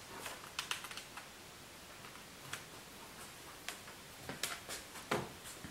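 Scattered light clicks and taps at irregular intervals from small objects being handled at a desk, with a slightly heavier knock about five seconds in.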